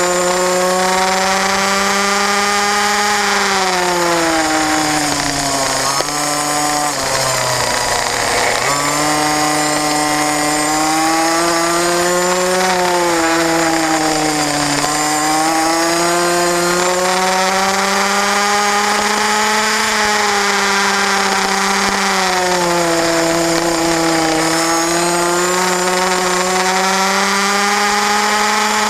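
Racing kart's engine heard onboard, running hard with its pitch repeatedly dropping as the driver comes off the throttle for corners and climbing again on the straights. The deepest drop comes a few seconds in, before it revs back up.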